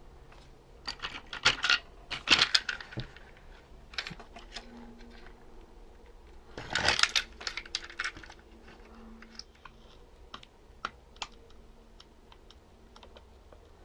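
Sharp clicks and light clatter of small parts being handled by hand: the leads of a small switch bent down and the plastic chassis of a toy RC tank turned and set on the bench. The rattling comes in bunches from about one to three seconds in and again around seven seconds, then a few scattered ticks.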